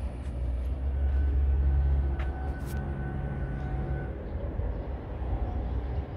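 Low rumble of a vehicle engine running, swelling about a second in, with a steady whine over it for about three seconds and a couple of faint clicks.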